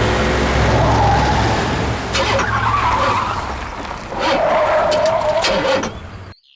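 Car engine running and fading, with squealing tyres or brakes as the car skids to a halt; the sound cuts off suddenly near the end.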